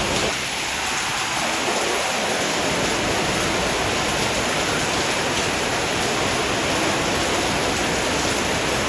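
Heavy rain pouring down steadily, an even rushing hiss of water.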